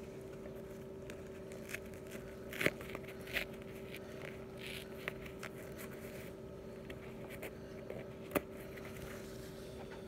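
Soft scuffs and rustles of a worn Salomon trail running shoe being handled and shifted on carpet, with a few sharper taps, the clearest one near the end. A steady low hum runs underneath.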